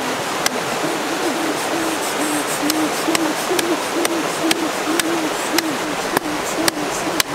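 A stream flowing steadily, with a low hooting call repeated about two to three times a second. Scattered sharp clicks of a knife working on a large catfish on a banana leaf cut through it.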